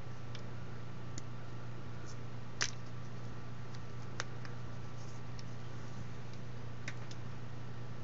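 A utility knife nicking and scraping through old heat-shrink tubing on RC brushless motor wires: four faint, sharp clicks spread a second or two apart, the second the loudest, over a steady low hum.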